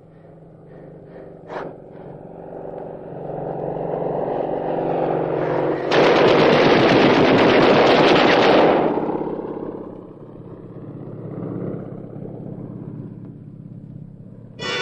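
Propeller aircraft engine drone growing louder as the plane closes in, then a long burst of machine-gun fire lasting about three seconds, starting about six seconds in, after which the engine sound falls away.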